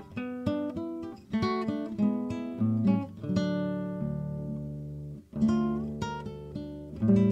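Background music: acoustic guitar playing plucked notes and chords. Near the middle one chord is left to ring and die away, then the picking resumes.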